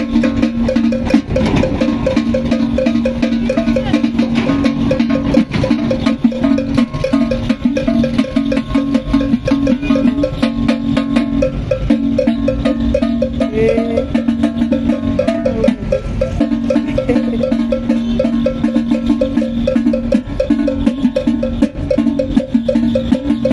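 A conical struck instrument, in the manner of a traditional gong, beaten with a stick in a fast, steady rhythm as dance music for a masquerade, its ringing tone repeating continuously.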